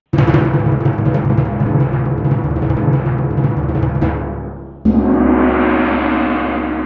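Dramatic added sound effect: a loud rumbling timpani-like drum roll that sags after about four seconds, then a sudden gong-like crash about five seconds in that rings out and slowly fades.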